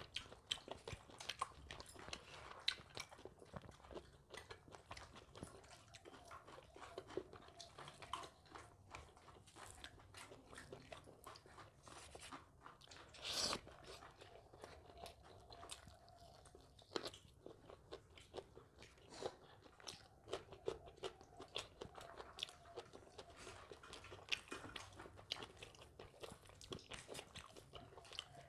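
A person chewing and crunching food close to the microphone: a steady run of small, sharp clicks and crunches, with one louder, longer noise about halfway through.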